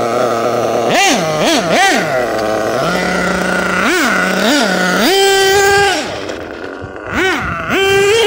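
Losi 8IGHT-T nitro truggy's small Dynamite .28 nitro engine idling, then revving in quick throttle blips. Three short blips come about a second in and two more around four seconds. A longer held rev follows around five seconds, then more blips and a held rev near the end.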